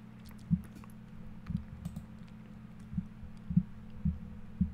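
A handful of irregular computer mouse clicks and scroll-wheel ticks with soft desk knocks, over a faint steady low hum.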